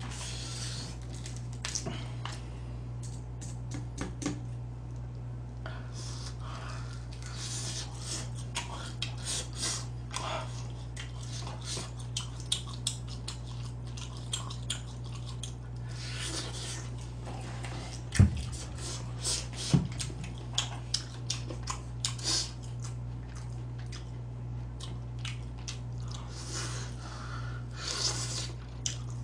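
Close-up eating of crispy fried chicken: crunchy bites, crackles and chewing over a steady low hum. Two sharper knocks sound about two-thirds of the way through.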